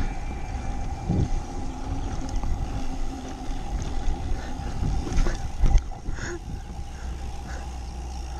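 Wind rumbling on an action camera's microphone while a mountain bike rolls along a dirt track, with a few knocks and rattles from the bike over bumps.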